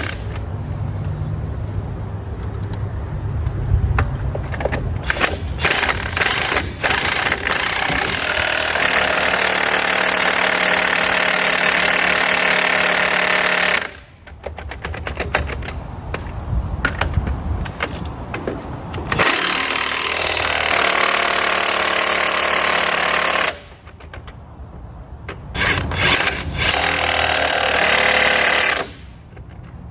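Impact wrench running the lug nuts onto a remounted truck wheel, in several long bursts of a few seconds each with pauses between.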